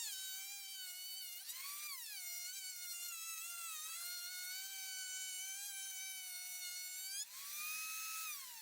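High-pitched whine of a universal woodworking machine's electric motor running, its pitch sagging as it is loaded by cutting wood and recovering as the load eases. About seven seconds in there is a click and the pitch jumps up as the motor runs free, then near the end it starts to wind down.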